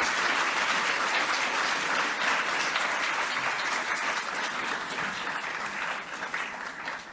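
Audience applauding at the close of a conference talk, steady clapping that fades away near the end.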